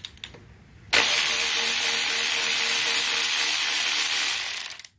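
Cordless electric ratchet running for about four seconds, its motor and gears whirring steadily as it backs out a stator screw; it starts about a second in and stops abruptly just before the end.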